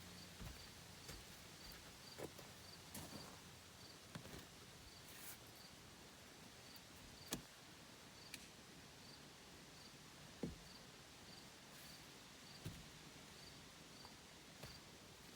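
Near silence outdoors: a faint insect chirping steadily about twice a second, with a few scattered clicks and knocks, the loudest about halfway through.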